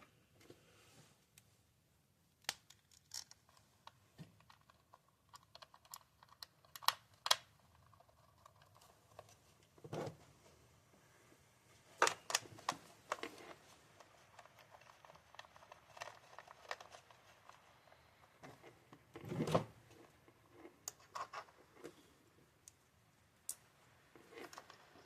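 Scattered metal clicks and taps of hand tools and sockets while spark plugs are threaded back into a car engine, with a quick run of clicks around six to seven seconds in and two duller knocks, about ten and nineteen seconds in.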